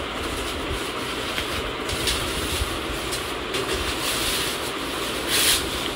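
Plastic wrapping rustling and crinkling as a metal planter is pulled out of its plastic bag, with several short crinkles and a louder one near the end, over a steady background hiss.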